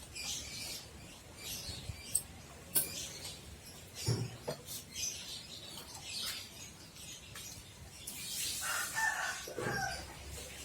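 Scattered light clicks and knocks, and near the end a rooster crowing once for about a second and a half.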